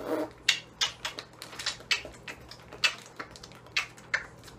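Aluminium foil on a baking tray crinkling and crackling as the tray is handled, a dozen or so sharp, uneven crackles.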